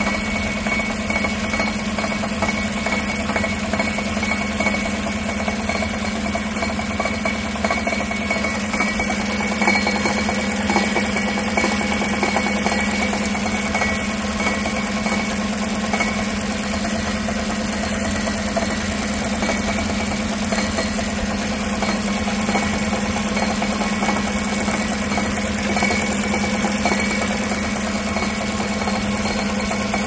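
2016 Chevy Tahoe's 5.3-litre V8 idling steadily, heard from under the truck, with a light rattle underneath. The rattle turns out to be the inside of the driver-side catalytic converter crumbling apart.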